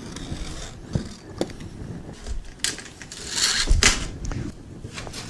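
A knife slicing across nylon window screening: a few light clicks, then a scratchy hiss of cutting and handling the mesh about three seconds in.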